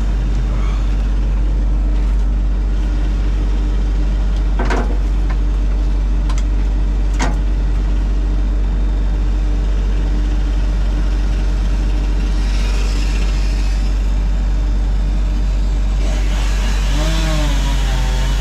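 Excavator's diesel engine running steadily with a deep drone. Two sharp cracks come about 5 and 7 seconds in, and a pitched whine bends up and down near the end.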